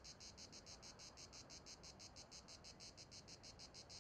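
Faint insect chirping in a fast, even pulse, about eight chirps a second.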